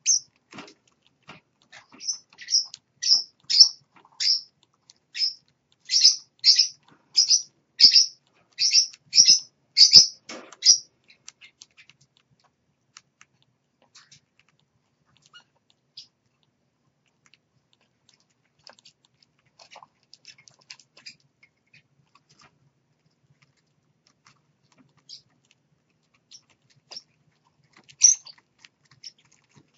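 Small caged pet parrots chirping: a run of sharp, high chirps about two a second for roughly the first ten seconds, then only scattered faint clicks and scratches, and a short burst of chirps again near the end.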